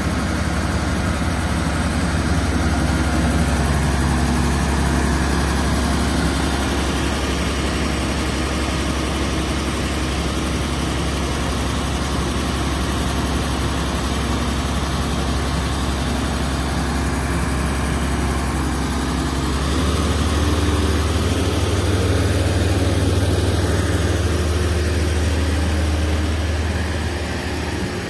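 Truck crane's diesel engine running steadily while the boom is worked, stepping up in pitch and getting a little louder about two-thirds of the way through.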